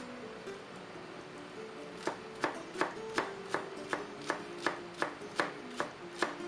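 Knife chopping a celery stalk on a plastic cutting board: a steady run of sharp knocks, a little under three a second, starting about two seconds in.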